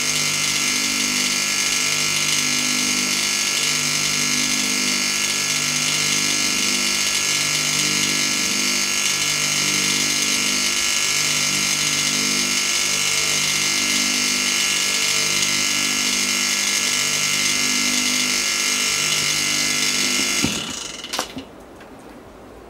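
Mitsubishi rotary compressor working as a vacuum pump, running steadily with a slow pulsing hum as it pulls a vacuum on a sealed double-glazed glass panel. It is switched off near the end, with a few clicks as it stops.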